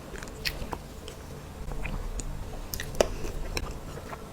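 Close-miked eating of a soft cream cake: wet chewing with scattered mouth clicks and smacks, the sharpest about three seconds in.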